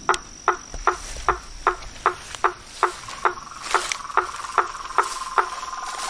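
Frogs calling: one gives a short, sharp knocking note over and over, about two and a half times a second, and about halfway through a second frog joins with a fast, steady trill. A thin, steady high-pitched tone runs underneath.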